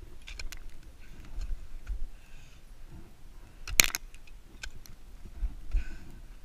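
Ice axe picks striking glacier ice: one hard strike about halfway, with lighter clicks and knocks around it.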